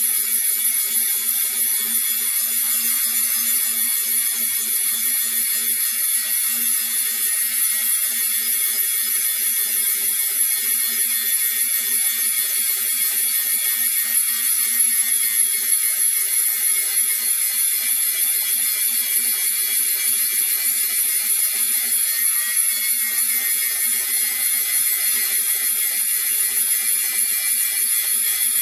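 Angle grinder grinding the end of a steel pipe to prepare the edge for welding: a steady, high-pitched grinding noise of the disc on the metal.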